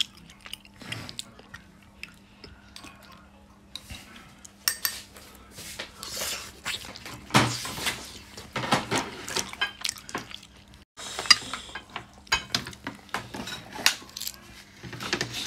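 Cooked clam shells clattering and clinking as a hand rummages through them in a stainless steel bowl, a run of irregular sharp clicks that gets busier and louder partway through. A faint steady hum sits underneath.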